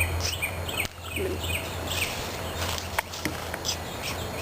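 Small birds chirping over and over outdoors, short high calls, over a steady low hum, with a couple of sharp knocks about a second in and again about three seconds in.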